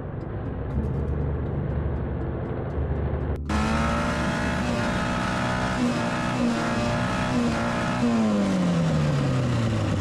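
Background music, then about three and a half seconds in, a Lada engine boosted by an oversized Kirovets tractor turbocharger running at high revs. About eight seconds in, the revs fall away steadily.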